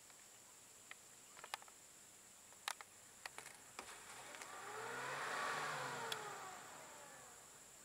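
A motor vehicle passing close by, its sound swelling over about two seconds and fading away again, over a steady high insect drone. A few sharp clicks come before it.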